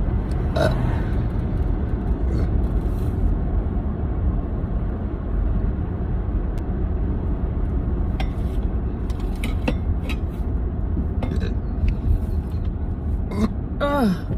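Steady low road rumble inside a moving car, with a woman's occasional hiccups and a short burp falling in pitch near the end.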